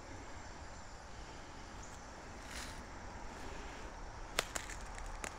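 Quiet woodland ambience, a steady low hiss, with a few sharp clicks about four and five seconds in.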